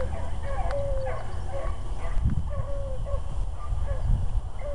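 Rabbit-hunting hounds giving chop-mouth bay on a rabbit's trail: a string of short, repeated barks, about two or three a second and fairly even in pitch, which means the pack is running a fresh rabbit.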